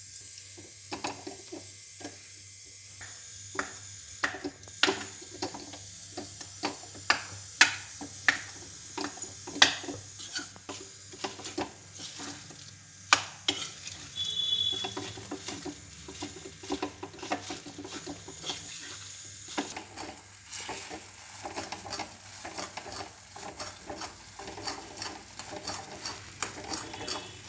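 A metal spoon stirs and scrapes khoya in a metal kadhai, with irregular sharp clinks of spoon against pan over a soft, steady sizzle. This is khoya being roasted on a low flame.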